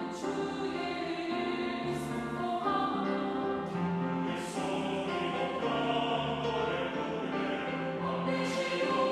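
Mixed choir singing a Korean hymn in parts, with piano accompaniment.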